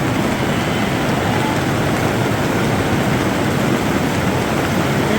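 Heavy rain falling on the barn roof in a storm: a loud, steady, even noise.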